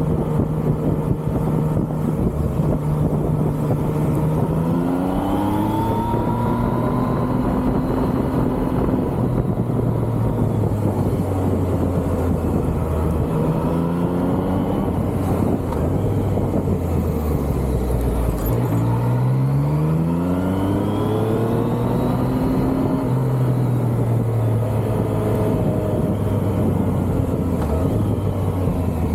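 A Yamaha MT-09's inline three-cylinder engine pulling a motorcycle along. It holds a steady pitch for long stretches and rises in pitch twice as the bike accelerates, about five seconds in and again after a brief drop about eighteen seconds in.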